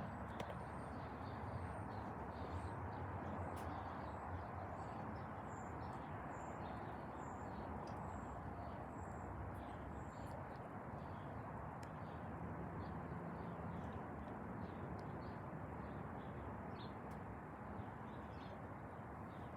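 Small birds chirping repeatedly, short high calls about once a second, over a steady background hiss and rumble of distant airport noise.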